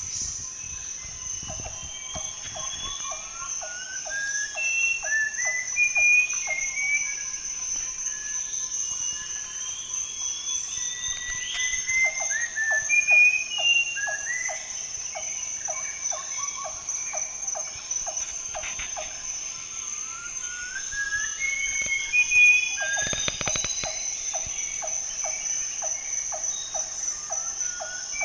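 Background music with a steady ticking beat of about three a second that drops out and comes back in sections, sliding higher melody notes, and a constant high tone throughout.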